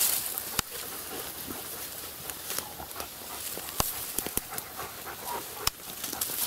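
A dog panting close by, with a few sharp clicks scattered through.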